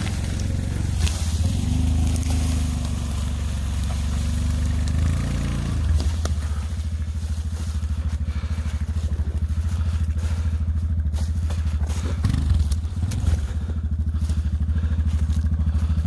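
Yamaha Rhino 700 UTV's single-cylinder engine working under load as it drags a log behind a skidding arch. The engine note shifts over the first six seconds, then settles into a steady, even run, with a few sharp snaps on top.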